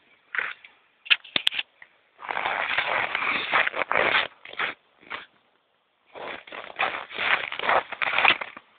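Electric RC scale crawler driven in two bursts of about two seconds each, its motor and gears whirring while the tires scrape and click over firewood logs. A few short sharp clicks come before the first burst.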